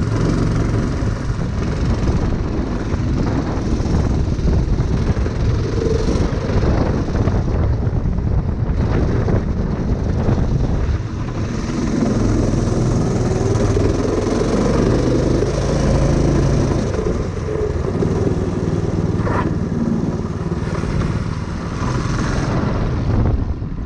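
Go-kart's 6.5 hp Honda-clone single-cylinder four-stroke gas engine running while the kart is driven slowly back and forth, its speed rising and falling, with a clear rise about halfway through; the engine is being warmed up.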